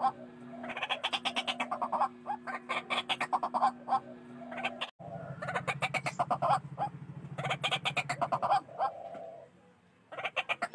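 White-breasted waterhen (ruak-ruak) calls in bouts of fast, repeated harsh notes, with a short lull near the end before one more bout. A steady low hum runs under the first half; a low buzz replaces it after a sudden break just before the middle.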